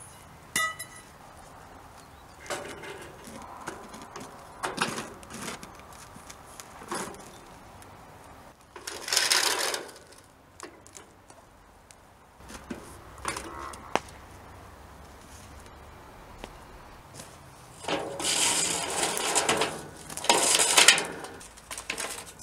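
Intermittent handling noise from work at the foot of a steel sliding gate: light clicks and metal clinks, with longer scraping rushes about nine seconds in and again from about eighteen seconds.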